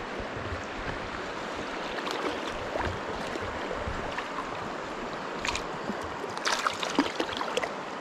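Shallow river current running steadily around a wading angler, with a few small splashes in the second half.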